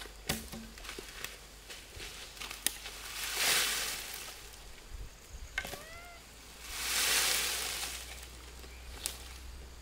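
Woven basket tipped out and shaken over a brush pile: its contents spill and rustle onto the dry sticks in two bursts, about three seconds in and again about seven seconds in, with small clicks and snaps in between.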